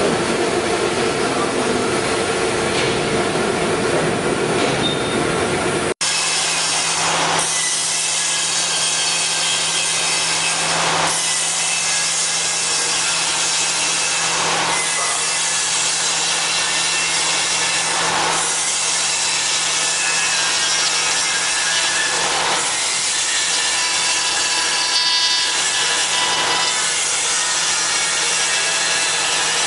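A CNC router's spindle and bit carving wood, a steady cutting noise with a low hum that swells about every three to four seconds as the bit sweeps back and forth across the piece. It starts after an abrupt change about six seconds in. Before that, a five-axis CNC head runs with a steady machine drone.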